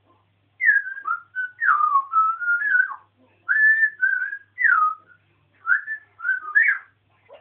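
African grey parrot whistling: a run of short whistles sliding up and down in pitch, in four phrases with brief gaps.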